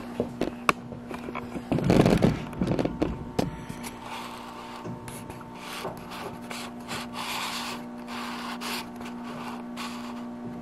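Steady hum of a Riley Cure Jr. conveyor dryer running, with handling clicks and knocks, a loud scraping rub about two seconds in, and softer rubbing a few seconds before the end.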